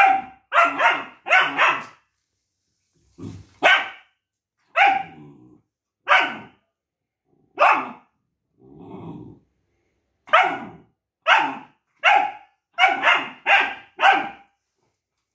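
Long-coat German Shepherd puppy barking in protest at its owner: a quick run of short barks at the start, then single barks a second or so apart, a low growl about nine seconds in, and another quick run of barks near the end.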